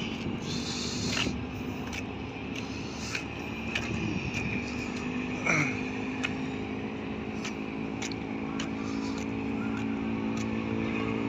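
Seaport background noise with a steady engine hum that grows louder near the end, and scattered light knocks.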